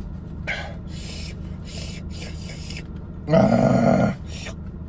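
A man lets out one loud, heavy breath through his open mouth about three seconds in, lasting under a second, as he pants against a mouth burning from very hot wings. A softer breath comes just after the start.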